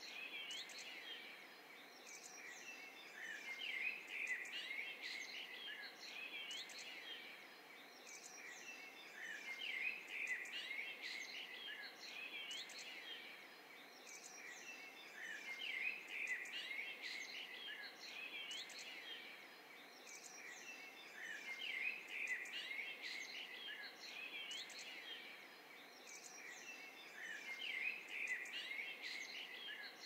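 Several songbirds singing and chirping over a faint steady hiss of forest ambience. The same short stretch of birdsong repeats about every six seconds, as a looped recording.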